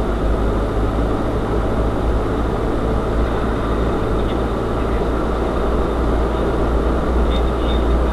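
UAZ-3909 'Bukhanka' 4x4 van driving over rough ground: a steady engine and road rumble, heaviest in the deep bass, with a few faint light rattles near the end.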